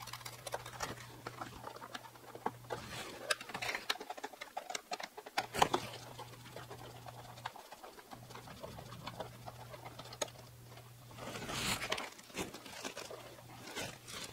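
Scattered clicks, taps and short rustles of hands and a small screwdriver working on plastic and foam model-biplane parts while fastening the wing's flying wires and bolts, over a low steady hum.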